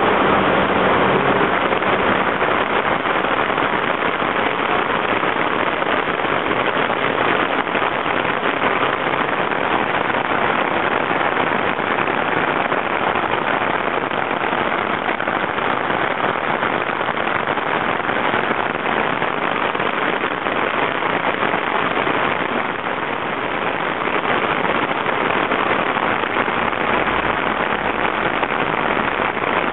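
Torrential rain from a sudden cloudburst pouring onto paved street in a steady, heavy hiss. Near the end, a bus's engine adds a low rumble.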